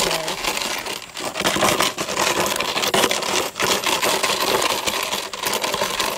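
Empty plastic water bottle crackling and crunching without a break as Cane Corso puppies bite and tug at it, with a few louder pops.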